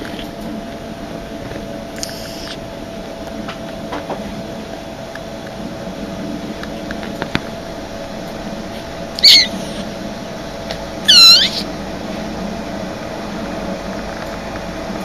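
Young kitten mewing: a faint high mew about two seconds in, then two high-pitched mews about nine and eleven seconds in, the second louder and longer, rising then falling in pitch.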